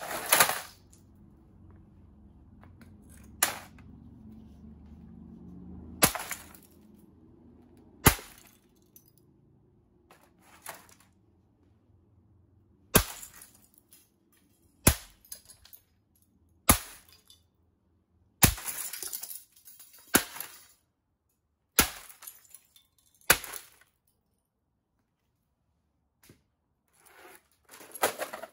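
A metal pipe fitted with a valve striking an opened VCR's casing and tape mechanism about a dozen times, roughly two seconds apart. Each blow is a sharp hard smash, and a few are followed by a short rattle of loose parts.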